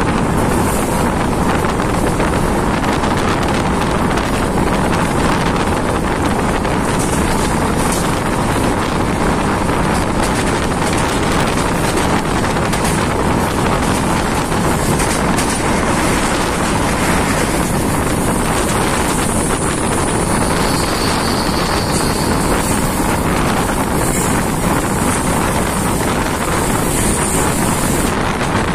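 Passenger train running at speed: a loud, steady rush of noise with wind buffeting the microphone.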